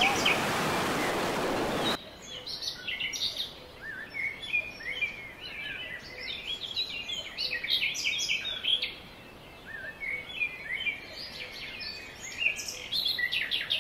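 Water rushing through dam spillway gates as a steady noise, cut off abruptly about two seconds in by many birds chirping and calling in quick, overlapping phrases.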